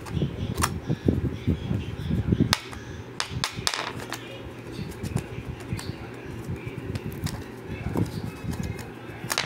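Irregular sharp clicks and knocks of a small hard object tapped and set down on ceramic floor tiles, with low rustling handling noise in between.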